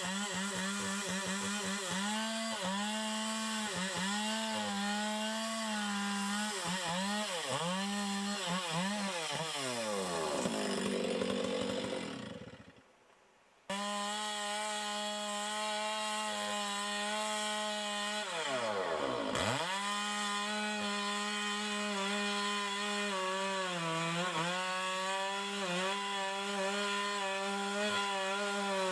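Chainsaw cutting wood, the engine pitch sagging and recovering again and again under load. About ten seconds in the engine winds down and stops, then is back at full speed abruptly a second and a half later. Near the middle the pitch dips deeply once and climbs back.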